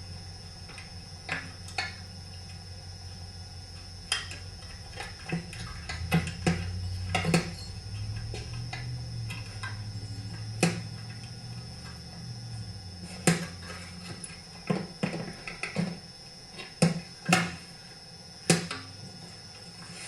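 Irregular knocks and clicks of chainsaw parts being handled and pressed together as the fuel tank is worked into place on a McCulloch Super Pro 125, with a low hum underneath that swells in the middle.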